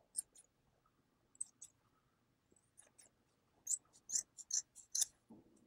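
Scissors snipping the fabric-covered tail of upholstery welt cording: faint, crisp snips, a couple of single ones and then a quick run of five or six near the end.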